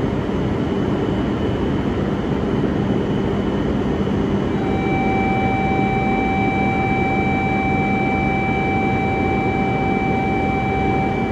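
E5 series Shinkansen standing at the platform, its cooling fans and air conditioning running with a steady rush and hum. About four and a half seconds in, a steady electronic buzzer tone starts and holds on unchanged, the kind of platform buzzer that sounds before a Shinkansen departs.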